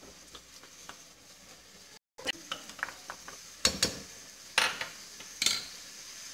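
Wooden spoon stirring onions, tomato and meat as they fry in oil in a stainless steel pot, with a faint sizzle and small clicks. Three sharper knocks come in the second half.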